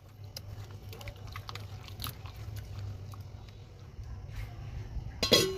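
Chicken pieces being squished and mixed by hand in a thick yogurt-and-spice marinade in a steel bowl, with soft wet squelches and small clicks over a steady low hum. A louder sharp clank comes near the end.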